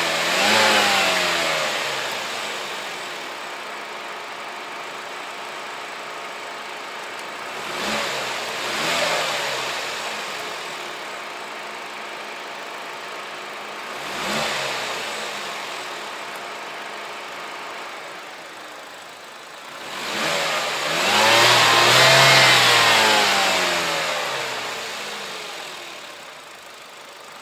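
2018 Haval H2's 1.5-litre turbocharged four-cylinder petrol engine idling with the hood open and being revved in blips. There is a rev right at the start, two quick ones about eight seconds in, one near fourteen seconds, and a longer, higher rev held around twenty-two seconds in. Each settles back to a steady idle.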